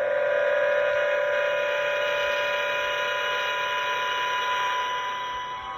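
The Star Trek transporter beaming sound effect played by the Hallmark Transporter water globe ornament: a steady shimmering hum of several held tones, easing off near the end.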